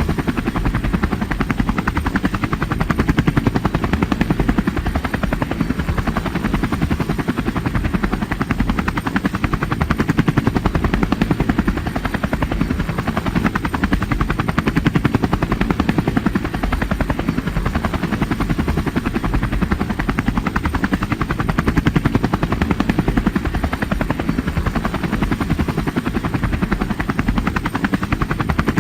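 Helicopter rotor blades chopping in a rapid, steady beat, with a deep, heavy low end.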